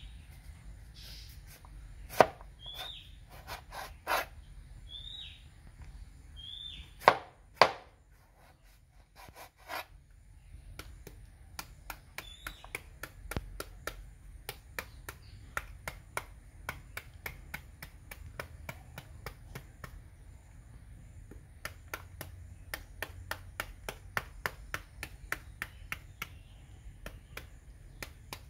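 Large knife chopping a young jackfruit: a few heavy knocks of the blade on a wooden chopping board in the first eight seconds, then quick steady cuts, about three a second, into the fruit held in the hand. A bird calls several times with a short chirp in the first half.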